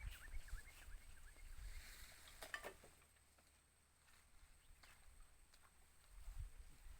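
Near silence: faint outdoor ambience with a low rumble and a few soft high chirps in the first second or so, and one light knock about two and a half seconds in.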